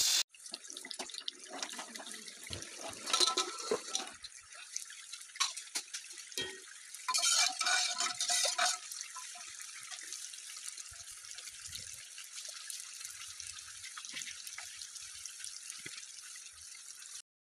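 Lentil dal cooking in an open pressure cooker: a steady watery hiss and bubbling, with louder sloshing stretches about three seconds in and again around seven to nine seconds.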